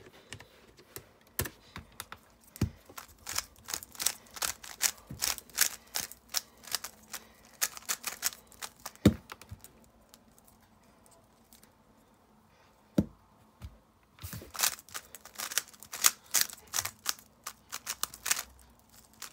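A 3x3 speed cube being turned fast, its layers clicking in quick runs of turns. The clicking thins to a near-quiet pause of a few seconds around the middle, then picks up again in another fast run near the end.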